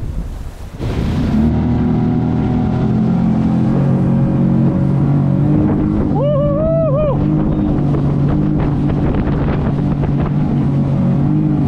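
Boat outboard motor running steadily under way, with wind on the microphone and rushing water. It comes up louder about a second in. About six seconds in there is a brief wavering high sound, like a whoop.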